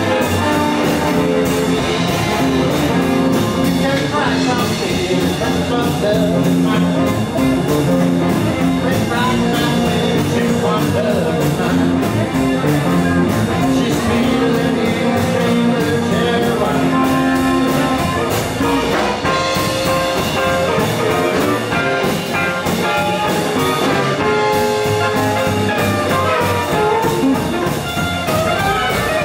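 Live blues band playing: amplified harmonica with held, wailing notes over electric guitar, upright double bass and drum kit.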